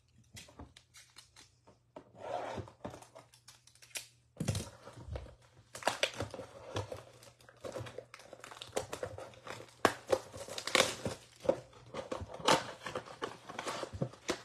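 Cardboard blaster box of trading cards being torn open by hand, with crinkling from the foil card packs inside. Irregular sharp rips and crackles, much busier from about four seconds in.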